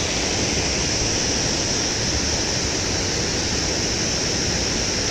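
Steady rush of river water spilling over a small concrete weir.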